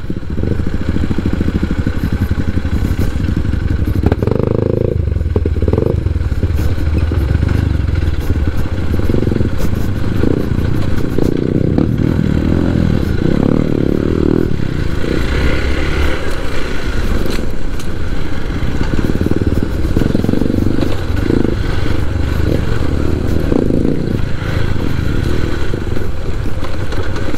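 Hero Xpulse 4V motorcycle's single-cylinder engine running as the bike is ridden off-road, the engine note shifting every few seconds, with frequent short knocks and clicks over it.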